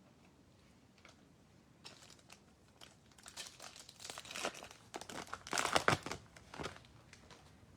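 A trading-card pack wrapper being torn open and crinkled by hand, in a run of irregular crackling rustles that is loudest about two-thirds of the way through.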